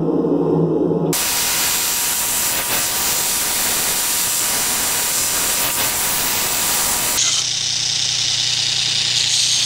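Belt grinder running with a steel knife blade, forged from a file, pressed against the belt: a steady harsh grinding hiss with a faint whine. It starts about a second in after a brief low drone, and about 7 s in gives way to the grinder's lower motor hum with a lighter, higher hiss.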